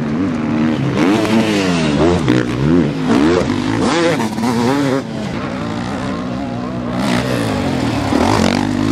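Motocross dirt bike engines revving up and down through the gears as the bikes ride the track, with more than one engine heard at once at times.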